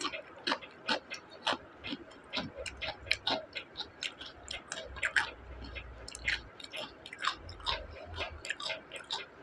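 A person chewing crisp fried onion pakoda with the mouth closed, close to a clip-on microphone: a run of sharp crunches about twice a second, with a low rumble twice in the middle.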